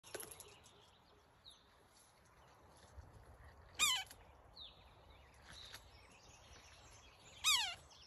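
Red-headed woodpecker calling: two loud calls nearly four seconds apart, each a short note falling in pitch, with fainter high chirps between them.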